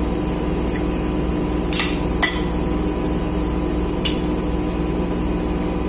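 A metal fork clinking against a plate three times, twice close together about two seconds in and once more about four seconds in, as pancake is cut and picked up. A steady low machine hum runs underneath.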